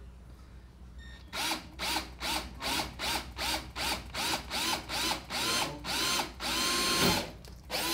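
Power drill triggered in quick short bursts, about three a second, the motor's whine rising and dropping with each squeeze, then held on for about a second near the end.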